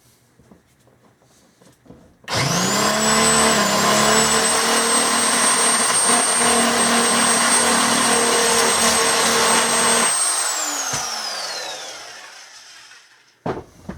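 Electric motor of a corded power tool switched on about two seconds in. Its high whine rises as it spins up and then runs steadily for about eight seconds. It is switched off and winds down with a falling pitch, followed by a short click near the end.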